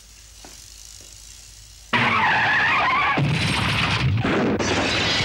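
Loud screech of skidding car tyres, starting suddenly about two seconds in and stopping abruptly just after the end, with a low rumble under it.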